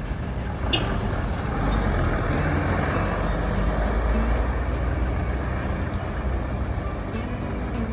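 A large road vehicle passing: a deep engine rumble that swells a couple of seconds in and slowly eases off, with a brief high squeak about a second in.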